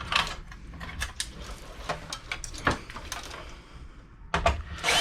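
Scattered clicks, knocks and rattles of an old desktop computer's metal and plastic parts and cables being handled and pulled apart by hand, with a louder clatter near the end.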